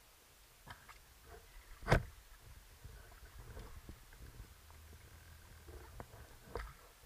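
Underwater clicks and knocks: a sharp knock about two seconds in and another near the end, with smaller clicks between, over a low rumble of water movement.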